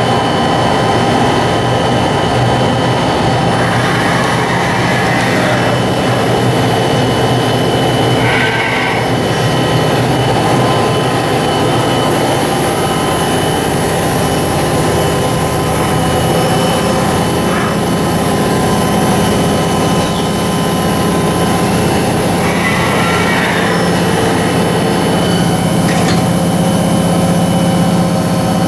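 Motch 219D twin-spindle CNC vertical turret lathe running under power: a loud, steady machine hum made of several constant tones over a noisy bed, with a few brief higher-pitched hisses a few seconds in, around eight seconds in, and near the end.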